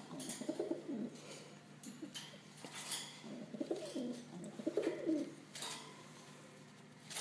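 Domestic pigeon cooing in two bouts, a short one at the start and a longer one in the middle, low and wavering. A few light taps and clicks come in between.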